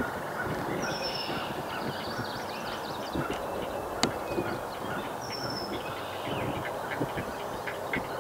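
Great blue heron nestlings calling at the nest: a rapid run of short, clattering calls, repeated throughout, over a steady background hiss.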